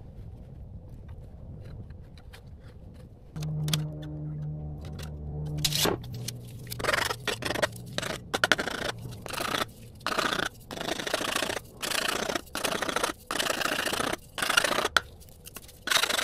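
Hand saw cutting with steady back-and-forth strokes, about one a second, after a brief steady hum from a small motor.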